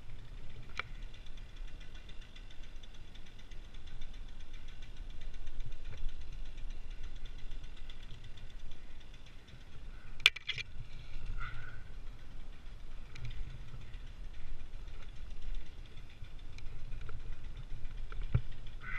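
A small engine ticking over steadily at idle under a low rumble, with a few sharp clicks, the loudest about ten seconds in, and a low thump near the end.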